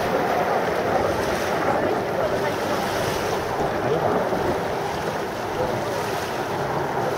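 Steady rushing roar of distant Frecce Tricolori Aermacchi MB-339 jets, with wind buffeting the microphone.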